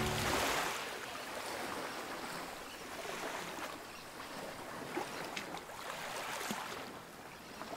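Water rushing and lapping along the hull of a sailboat under way, with scattered small splashes.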